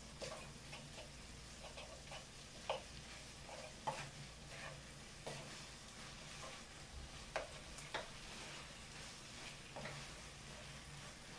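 A spatula stirring chicken dalgalbi in a frying pan, with irregular scrapes and clacks against the pan about once a second over a faint sizzle.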